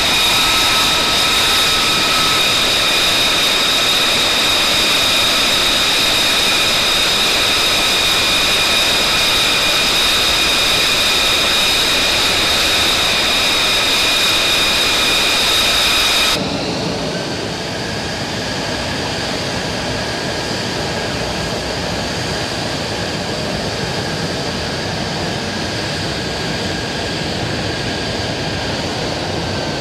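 F-35 Lightning II fighter's jet engine running: a loud steady rush with several high whining tones. A little past halfway it cuts abruptly to a quieter, duller jet sound with a single fainter whine.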